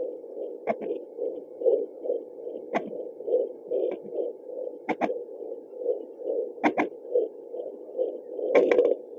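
Fetal heartbeat heard through a Yunos handheld fetal Doppler's speaker: fast, regular whooshing pulses, several a second, over a steady muffled hum. Five sharp clicks cut in at intervals.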